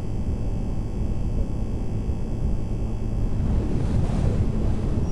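Wind buffeting the microphone over the steady low drone of a motorboat's engine, the rushing growing rougher and brighter about four seconds in.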